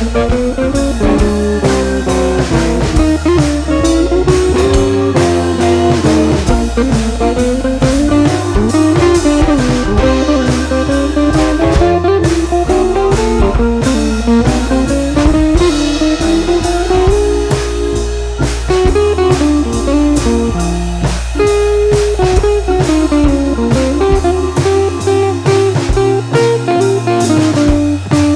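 Background music: a blues-style instrumental with guitar lead and drum kit.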